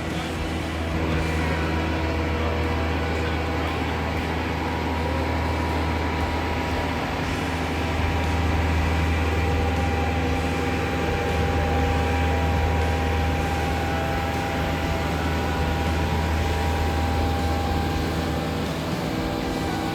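Steady low rumble with faint steady whining tones above it: cabin noise of a Learjet 60 with its turbofan engines running.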